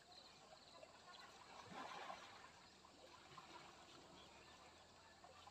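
Near silence: faint river ambience of trickling water, with a slightly louder soft splash about two seconds in.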